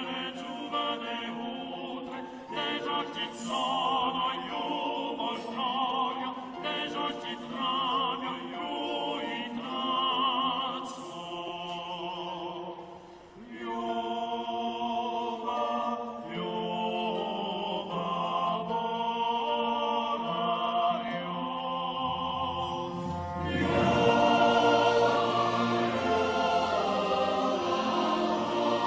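Background music of classical choral singing, the voices held on long notes with wide vibrato. About three-quarters of the way in it grows fuller and louder, with a deep bass part coming in.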